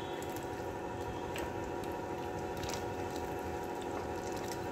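Tomato, yogurt and spice masala frying in oil in a pan: a steady soft sizzle and bubbling, with a few faint clicks.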